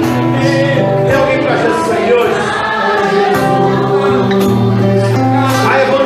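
Gospel hymn sung by several voices over instrumental accompaniment with held low notes.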